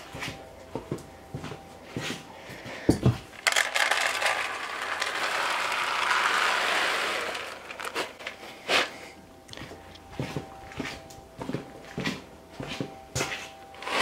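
Chick feed crumbles poured from a plastic scoop into a plastic chick feeder tray: a steady granular hiss lasting about four seconds, starting a few seconds in. Scattered knocks and rustles come from handling the scoop and the paper feed bags.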